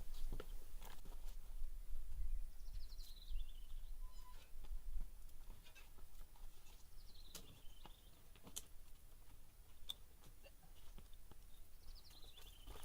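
A songbird sings a short trilled phrase that falls in pitch, three times, about every four to five seconds. Scattered light clicks and crackles sound in between, and a low wind rumble on the microphone fades after the first few seconds.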